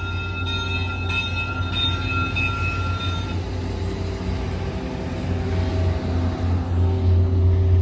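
VIA Rail F40PH-2 diesel locomotive passing close by, its EMD 16-cylinder two-stroke engine giving a steady low drone that grows near the end, with the stainless-steel passenger cars rolling past behind it. A few high steady tones stop about three seconds in.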